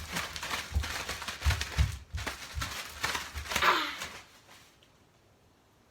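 Plastic zip-top bag of sugar and cinnamon shaken hard, crinkling with several dull thumps, and a short cry near the end; then it goes quiet about a second before the end.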